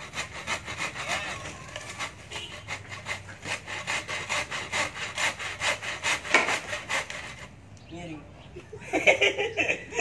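Hand saw cutting a wooden board in quick, even back-and-forth strokes. The sawing stops about two seconds before the end, and a brief vocal sound follows.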